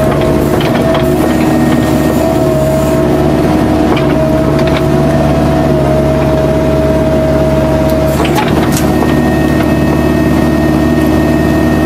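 Kubota U-45 mini excavator's diesel engine running steadily under work, with a held whine over it and a few sharp knocks and cracks.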